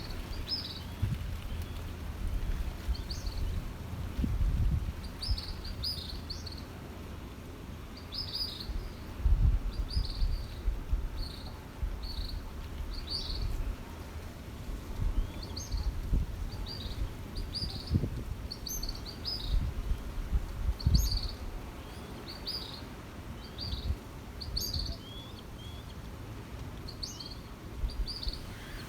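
Birds chirping repeatedly in short, quick calls, many separate chirps throughout, over a low rumble of gusting wind on the microphone.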